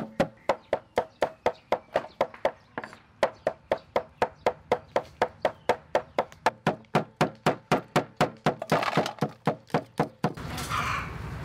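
Cleaver chopping garlic on a wooden cutting board: steady, rapid strikes at about four a second. Shortly before the end the chopping stops, leaving a steady low background noise.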